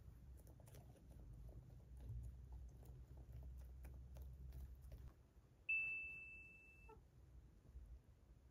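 Near-silent room tone with faint soft clicks, broken about two-thirds of the way through by a single high, clear ding that starts suddenly and fades over about a second, like an edited-in chime sound effect.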